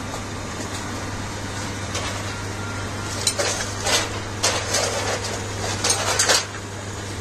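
Electric motor of a kharra/mava supari-cutting machine running with a steady low hum, with a few sharp metallic clicks over it in the second half.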